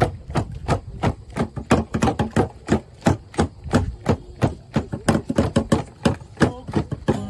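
Tifa hand drums beaten in a fast, driving rhythm of sharp strikes, several a second, accompanying a Papuan dance.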